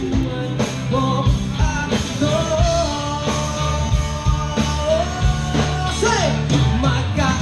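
Live rock band playing: drums and bass keep a steady beat under a sliding lead melody line.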